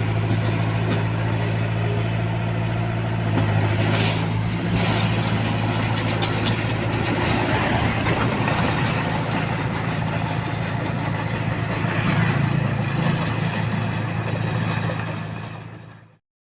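Komatsu D21A bulldozer's diesel engine running steadily, with scattered sharp clicks and knocks over it. The sound fades out near the end.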